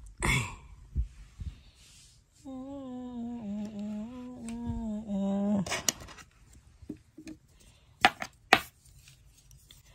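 A woman humming a short tune for about three seconds, after a breathy exhale just at the start. A few sharp knocks and clicks follow in the second half.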